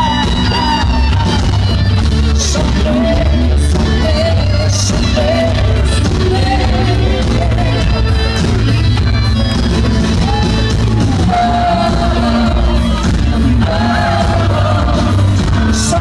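Rock band playing live: a male lead vocal sung over electric guitar, bass guitar, keyboards and a drum kit with sharp cymbal hits, heard from among the audience.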